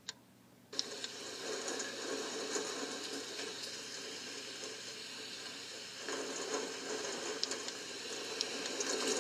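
Recorded falling-water sound from the app's sleep sounds: a steady crackling hiss that starts a moment in and grows a little fuller about six seconds in.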